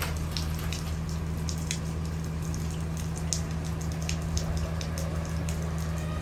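Rain falling in many scattered drips and taps over the steady low hum of an idling school bus.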